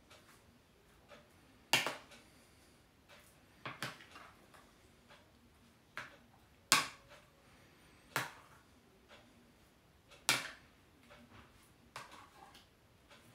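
Metal fork clicking against a plate while turning a croquette in beaten egg yolk: about half a dozen sharp clicks at irregular intervals.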